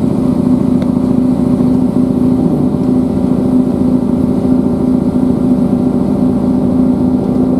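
Class 158 diesel multiple unit running at speed, heard inside the passenger saloon: a steady engine drone with a strong, unchanging hum over a low rumble from the wheels and track.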